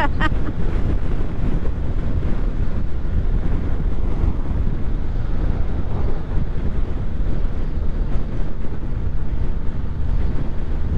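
Steady wind rush on the microphone over a low, even drone of road and engine noise from a vehicle on the move.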